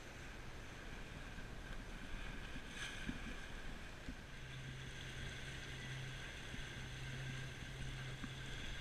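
Wind and water noise aboard a sailboat under way, with a low steady hum that comes in about four seconds in.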